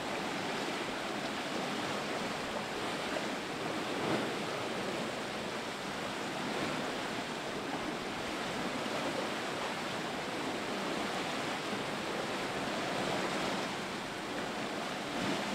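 Steady rush of sea water and wind around a sailing yacht under way, swelling a little now and then with the waves.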